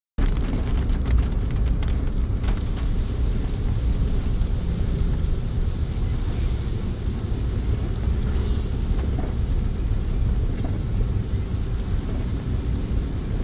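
Steady low rumble of a car driving on a wet road, heard inside the cabin, with the hiss of rain on the windscreen and scattered faint ticks.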